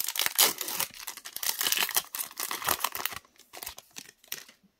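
Foil booster-pack wrapper being torn open and crinkled, a dense rustle for about three seconds. Lighter clicks and rustles follow as the cards are slid out and handled.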